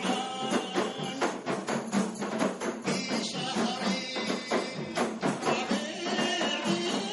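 Kompang ensemble: a group of Malay hand-struck frame drums playing a fast, dense interlocking rhythm, with a man singing into a microphone over the drumming.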